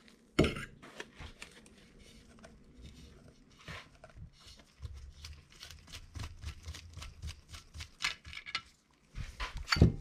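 Metal bicycle crankset parts being handled and taken apart by hand: scattered light clicks and knocks of crank arm, spindle and chainring, with a louder knock about half a second in and a few more near the end.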